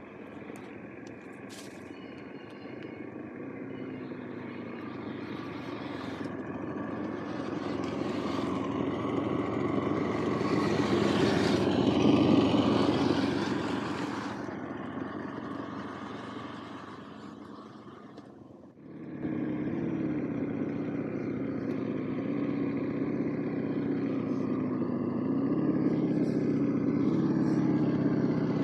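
RC scale crawler with an onboard engine sound unit, its simulated engine running as the truck drives. It grows louder to a peak about twelve seconds in and then fades. After a cut it settles into a steady engine hum whose pitch steps up and down a little with the throttle.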